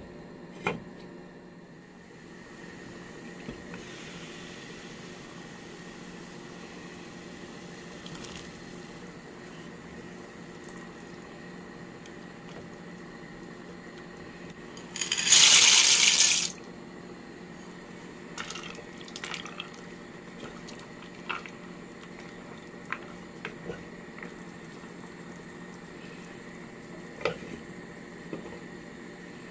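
Cooking at a pot on the hob: a steady low hiss, a loud rushing, splashing noise lasting about a second and a half halfway through, and a few short clinks of the glass lid and wooden spatula against the pot.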